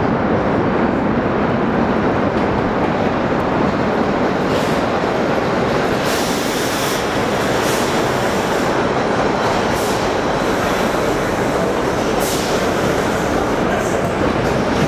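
Vintage 1930s R1-R9 subway cars running along the platform: a steady loud rumble of steel wheels on rail, with short high hissing bursts every second or two.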